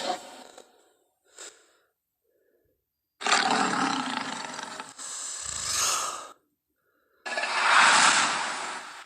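Tyrannosaurus rex roar sound effects: a roar trails off at the start, a second comes about three seconds in and ends in a deep rumble, and a third comes about seven seconds in, with silent gaps between.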